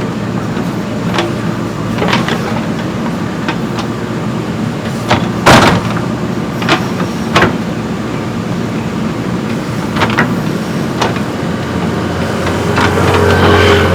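JCB 3DX backhoe loader's diesel engine running steadily as it digs, with scattered sharp knocks and clanks of the bucket striking earth and rock, the loudest about five and a half seconds in. Near the end the engine gets louder, working under load.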